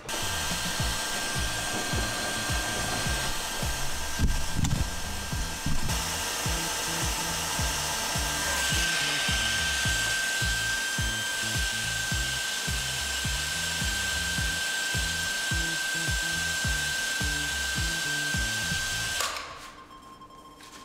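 Steady mechanical running noise with a constant high whistle as the filter housing is pressurized, the gauge needle climbing to 0.3 MPa; it stops abruptly about 19 seconds in. Background music plays underneath.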